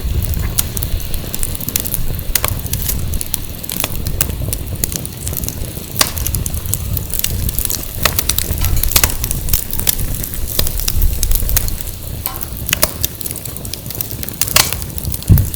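Firewood burning, crackling with irregular sharp pops, over a low rumble of wind on the microphone. A low thump near the end.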